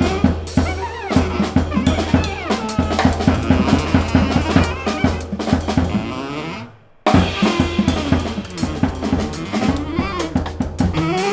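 Drum kit playing a busy groove with many quick strokes, with a saxophone line over a steady bass note. The music starts abruptly, breaks off for a moment just before 7 seconds, then comes back in.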